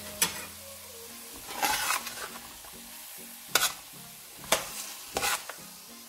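Vegetables sizzling in a frying pan while a metal spatula stirs and tosses them, with several sharp scrapes and clacks of the spatula against the pan.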